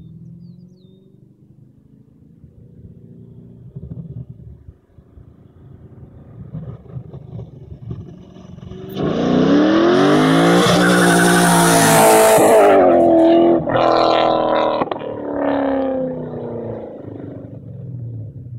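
Pontiac GTO's V8 through a custom 4-inch exhaust, making a hard pass-by: a faint rumble at first, then about halfway through a loud rising pull as it comes past, a short break, a second pull, and the sound fading as it drives away.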